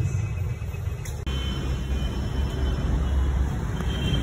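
Steady low rumble of street traffic, broken briefly a little over a second in.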